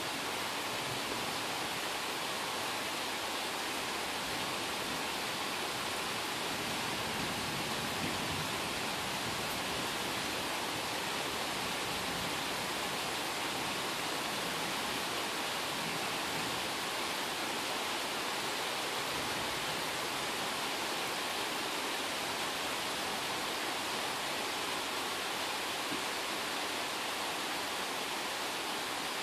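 A night-time rain shower falling steadily: an even hiss that holds unchanged throughout.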